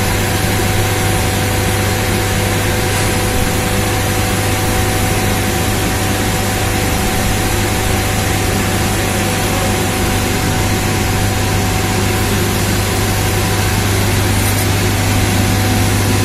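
Steady running noise of a 165 kW back-pressure steam turbine and generator set: an even hiss over a strong low hum, with two faint steady higher tones.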